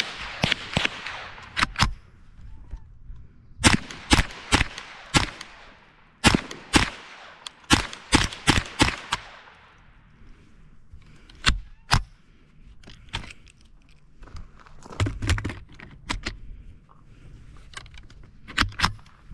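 Ruger 10/22 Takedown semi-automatic .22 rifle firing strings of quick shots, each a sharp crack with an echo trailing off across the range. The shots come in runs of several, with fainter, sparser cracks in the second half.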